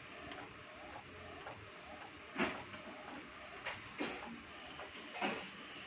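Epson L1300 inkjet printer running while it prints, a steady mechanical noise broken by four sharp clacks, the loudest about two and a half seconds in.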